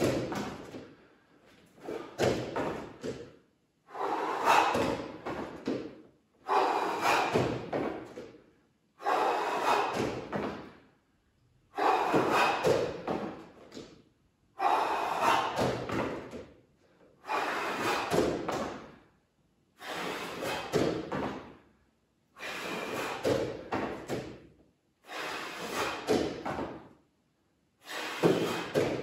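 A person exercising: a burst of hard breathing and body-movement noise about every two and a half seconds, one for each repetition of a bodyweight leg exercise.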